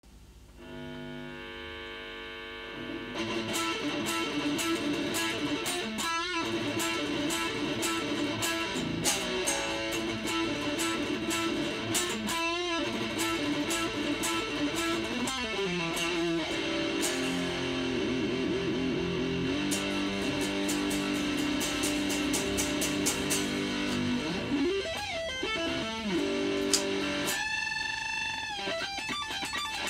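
Ibanez PGM100 electric guitar played with heavy distortion as a solo. A quieter held opening gives way, about three seconds in, to fast lead runs with several notes swooping down and back up in pitch, and it ends on a long held note with vibrato.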